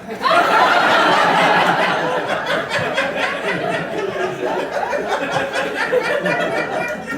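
Several people laughing at once, breaking out suddenly and loudly, then slowly dying down.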